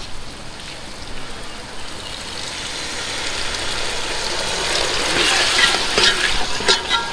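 Paneer curry sizzling in a hot pan as the water just poured into the masala boils off, the sizzle growing louder over the first few seconds. A few metal clinks of a spoon against the pan near the end.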